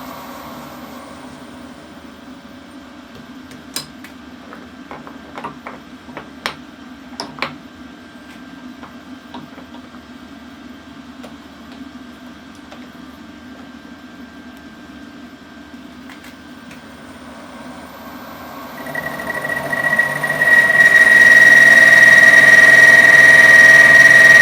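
A low machine hum with a few light metallic clicks and clinks, then a machine tool's motor starts and spins up over about two seconds into a loud, steady, high-pitched whine.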